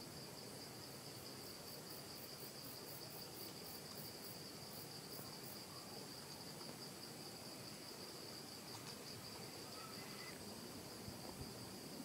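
Steady high-pitched trilling of insects, with a faint run of quick ticks, about three a second, from about a second in until about halfway.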